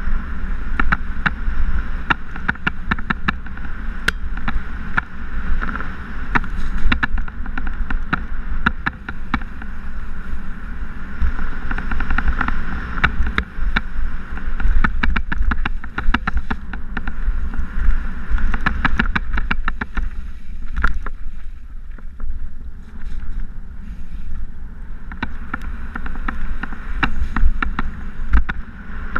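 Mountain bike descending a rough dirt singletrack at speed, heard from an on-board action camera: wind rumbling on the microphone, with constant rattling and clacking from the bike over the trail.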